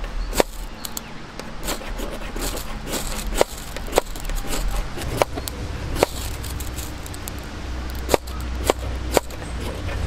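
Ferrocerium rod fire starter struck about nine times at uneven intervals, each strike a short sharp scrape, in repeated attempts to light birch bark that is not catching.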